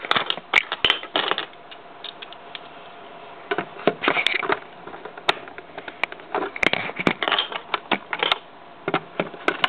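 Plastic Lego pieces of a Lego seatbelt-lock mechanism clicking and clattering as it is handled, with a quieter pause of about two seconds near the start.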